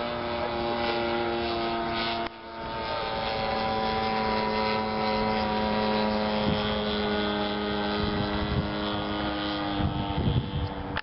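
DLE-55 single-cylinder two-stroke gasoline engine of an RC airplane in flight, running steadily, with a sharp dip in level about two seconds in before the drone settles at a slightly lower pitch; the owner judges the tune to sound healthy. A few low bumps come in over the engine near the end.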